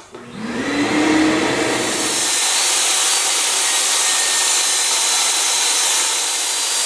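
DeWalt jobsite table saw's motor starting up with a rising whine that levels off within about a second, then running steadily at full speed with a loud whine and hiss while plywood is fed for a cut.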